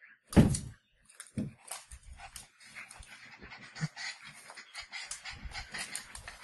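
A Pomeranian and a German Shepherd play-wrestling: panting and snuffling with short low growls, and quick clicks and scuffs of paws on the hard floor. A loud thump about half a second in is the loudest sound.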